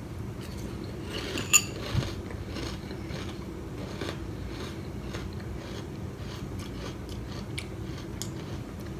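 A person chewing dry crunchy cereal, with a few faint crunches.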